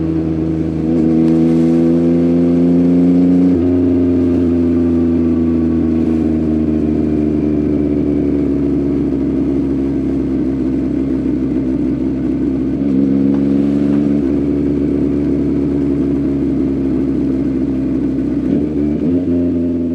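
Yamaha MT-09's three-cylinder engine through an Akrapovic full-system exhaust under way: it rises in pitch under acceleration, drops sharply at a gear change about three and a half seconds in, then runs on with its pitch slowly falling, with a couple of smaller pitch changes later.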